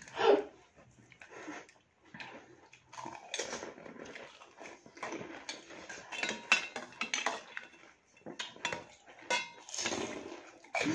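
Metal spoons clinking and scraping against bowls while crisp pani puri shells are poked open and filled, in scattered, irregular clatters.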